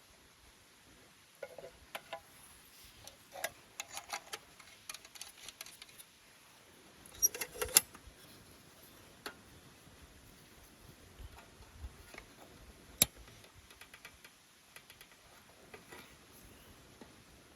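Wood campfire crackling: irregular sharp pops and snaps, with a quick cluster of louder cracks about halfway through and one sharp pop a few seconds later.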